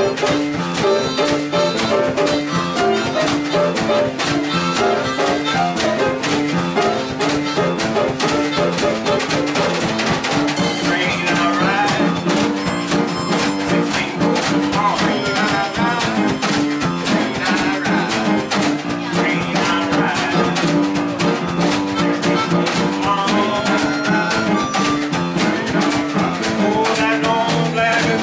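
Small live blues band playing a jam: a drum kit with cymbals keeps the beat under a repeating pitched instrumental line, steady and unbroken.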